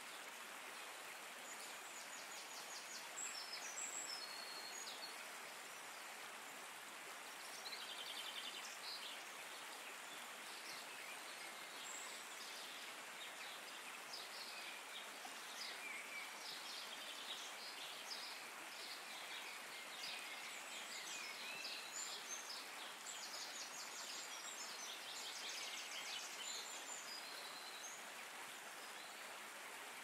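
Steady rush of running water with songbirds chirping and trilling over it now and then, more often in the second half.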